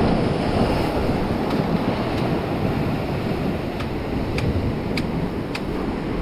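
Sea surf washing against shoreline rocks, with wind buffeting the microphone. A few light clicks come about half a second apart in the second half.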